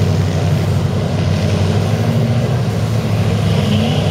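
Lifted Ford pickup truck's engine running hard under load as it churns through a mud pit. The engine note rises briefly near the end.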